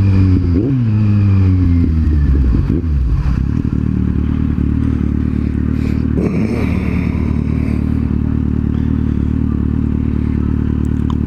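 Kawasaki Z750's inline-four engine and exhaust, revving up and down for the first few seconds and then running steadily at low revs.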